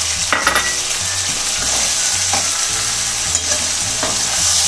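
Chicken, onions and freshly added chopped tomatoes sizzling steadily in a hot metal pan. A spatula scrapes and stirs through the mixture in a few separate strokes.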